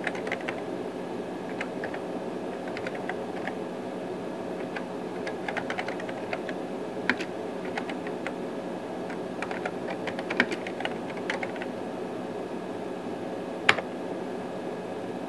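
Typing on a computer keyboard: bursts of key clicks as a command is entered at the terminal, with one louder keystroke near the end as Return is pressed. A steady machine hum runs underneath.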